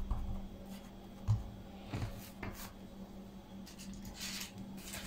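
Hands pressing and smoothing soft pide dough on a countertop: faint rubbing with a few soft taps, and a brief rustle about four seconds in.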